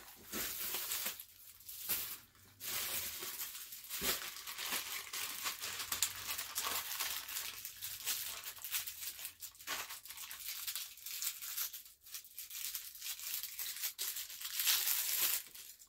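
Packaging crinkling and being torn open by hand: an irregular crackle with a few short pauses.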